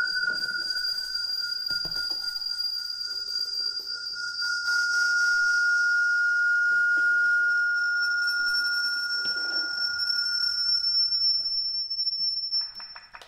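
Audio feedback howl from a Skype group call between computers placed close together: two steady whistling tones, a lower one and a much higher one, held for many seconds. The lower tone fades out near the end, and the higher one climbs slightly and cuts off just before the end.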